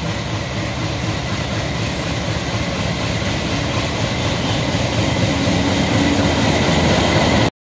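Train running on the track: a loud, dense, steady rumble that grows a little louder, then cuts off abruptly near the end.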